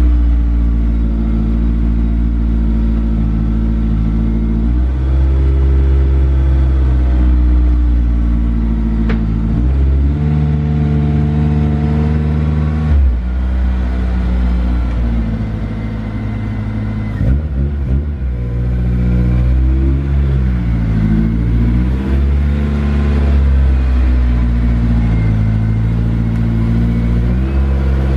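Honda S2000's four-cylinder engine running at low revs while the car creeps slowly. Its pitch holds steady for a few seconds at a time and then steps up or down, and it dips and rises a few times past the middle.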